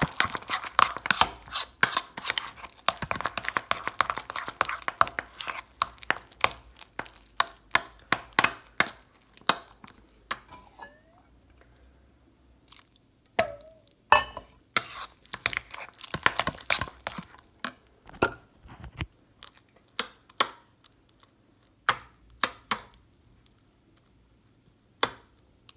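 A spoon stirring wet oatmeal with cinnamon water in a dish: a quick run of clicks and scrapes against the dish, thinning out about ten seconds in to scattered single knocks.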